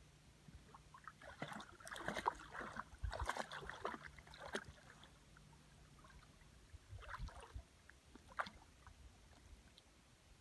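Faint splashing and sloshing of water as a dog wades and swims in a river, in irregular bursts over the first few seconds and two short splashes later on.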